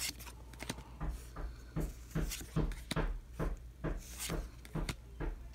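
Pokémon trading cards being flicked and slid past one another in the hands as a pack is flipped through card by card: a run of soft card-stock flicks and rubs, about three a second.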